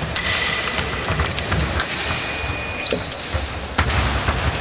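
Fencers' footwork on a sports-hall floor: repeated dull stamps and thuds as they advance and retreat, sharp clicks and short high shoe squeaks, with echo from the large hall.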